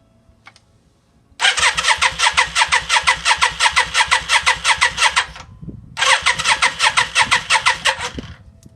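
Yamaha Virago XV535 V-twin being cranked on its electric starter in two attempts, about four seconds and then about two seconds long, with a fast, even chugging of compression strokes. It never fires, because there is no spark at either plug.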